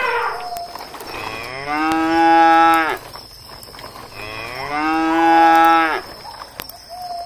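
Cow mooing twice, two long moos about three seconds apart, each rising at the start and then held for over a second. The tail of a previous moo fades out at the very start.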